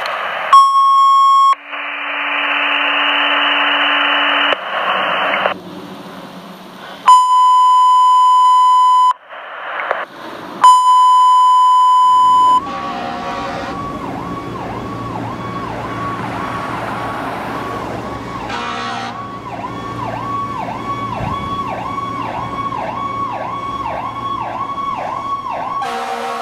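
Two-way radio alert tones: long steady beeps with a burst of radio static between them. About halfway through, a fire engine's electronic siren takes over, yelping in fast rise-and-fall cycles about twice a second over a low engine hum.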